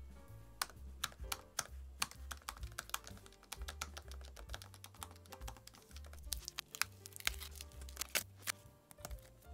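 Keys of a MacBook 12" 2017 butterfly keyboard pressed over and over, a fast irregular run of sharp clicks, while the keyboard fails to register the presses. Background music plays underneath.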